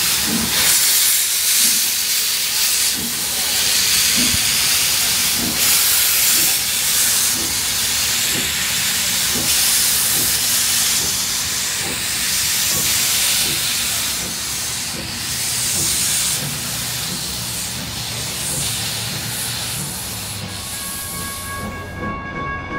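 Steam locomotive pulling away, with a loud hiss of steam from its open cylinder cocks over slow exhaust chuffs that gradually quicken. Near the end the hiss stops and a railroad crossing bell rings.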